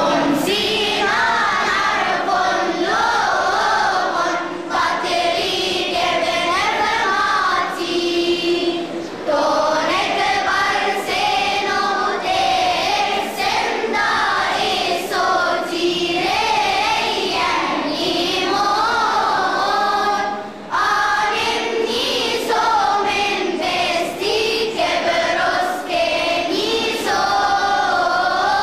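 A choir of children singing a church hymn together, with a short break between phrases about twenty seconds in.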